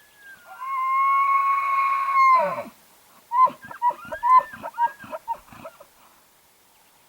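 Bull elk bugling: one long, high whistle that drops sharply in pitch at the end. It is followed by a quick series of about eight short grunting chuckles.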